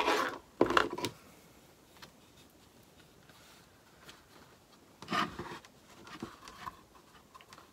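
Hands handling craft pieces on a plywood worktable: two short knocks and rubs as things are set down in the first second, then, about five seconds in, cloth rubbing and scraping against wood as a fabric pocket is pressed onto a wooden breadboard.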